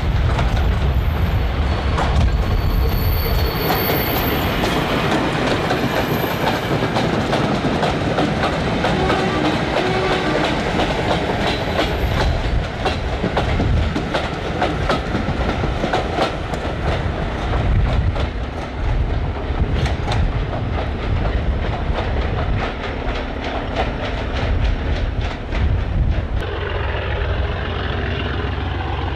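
Diesel locomotive hauling a train of freight wagons and brake vans past close by: steady engine rumble, with the wheels clattering rhythmically over the rail joints as the wagons go by. Near the end it changes to the engine of a Class 37 diesel approaching under power with passenger coaches.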